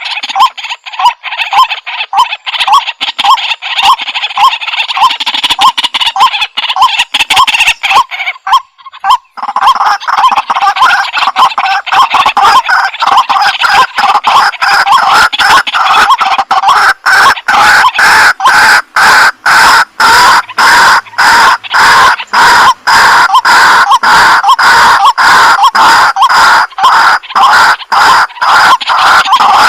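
White-breasted waterhen calling: a long run of loud, rapidly repeated harsh notes, with a short break about nine seconds in, after which the calling comes denser.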